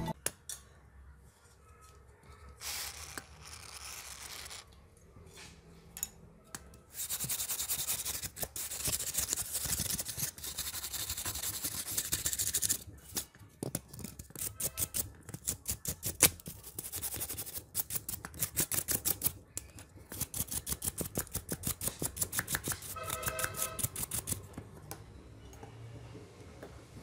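Quick scrubbing strokes on a small hard part of the Nokia C5-03. The scrubbing runs steadily for several seconds, then turns to even back-and-forth strokes a few times a second.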